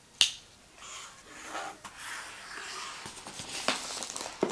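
A sharp tap near the start, then plastic shrink-wrap crinkling and crackling with small clicks as it is torn and peeled off a box.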